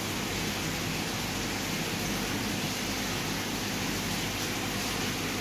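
Steady, even rushing hiss of running water in the aquarium, as from its filter return.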